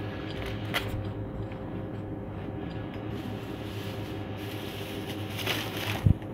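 Shop room tone: a steady electrical hum, with a single click about a second in and a knock near the end.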